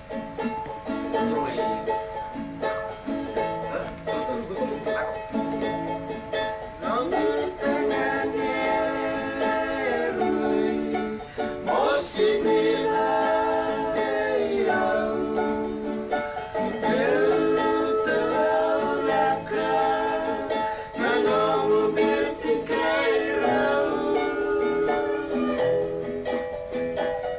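Acoustic guitars strummed together, playing a song.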